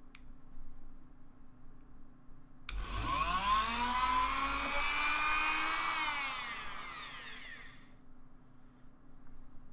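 Dremel rotary tool fitted with a small drill bit, switched on almost three seconds in and spinning up to a high whine as it drills out a hole through a circuit-board pad, then switched off and winding down over about two seconds.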